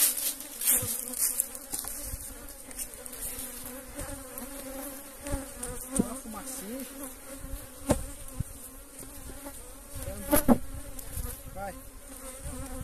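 A honeybee colony buzzing steadily at an opened wooden hive, with a few sharp knocks from a hive tool prying at the boxes, the loudest a little past the middle.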